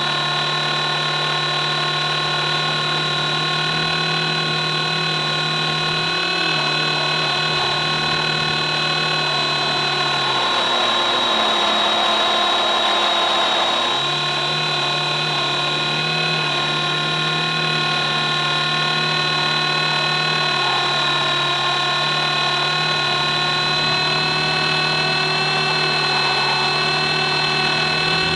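E-Razor 450 electric RC helicopter, heard from a camera mounted under it: a steady high whine from the motor and gears over a low rotor hum. About ten seconds in, the hum drops away for roughly four seconds while a rushing noise rises, then the hum returns.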